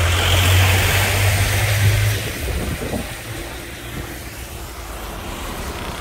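A small goods truck passing close by on a wet road. Its engine drone and tyre hiss are loudest for the first two seconds, then fade into a steadier road and wind noise.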